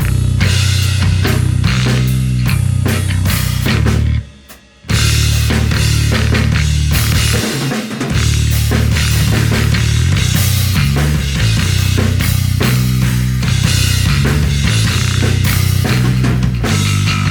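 Electric bass and drum kit playing a driving rock groove, with a short, complete stop about four seconds in before the groove comes back in.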